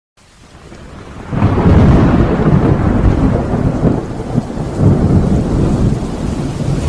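Rain and thunder sound effect: a low rumble of thunder over steady rain. It fades in, then swells suddenly into a loud, heavy rumble about a second and a half in.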